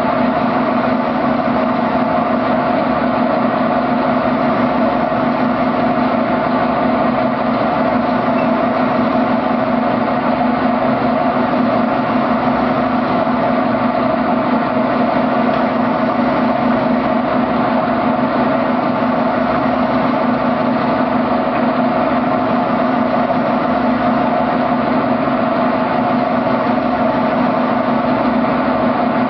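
Steady, unbroken machine hum, as from a top-loading washing machine's motor running, with no rhythm or change.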